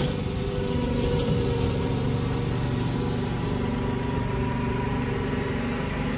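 Small engine of a ride-on double-drum roller running at a steady speed as the machine rolls over the lawn.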